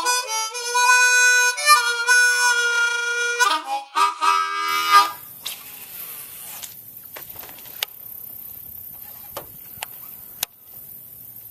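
A short, loud harmonica tune plays for about five seconds and stops. It gives way to quieter outdoor sound over the water: a steady hiss with a few sharp clicks.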